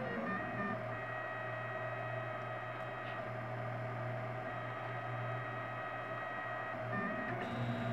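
Printrbot LC 3D printer running while printing: its stepper motors whine in steady tones that change pitch with each move, over a constant low hum.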